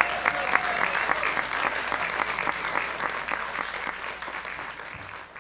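A large seated audience applauding, dense clapping that thins and dies away near the end.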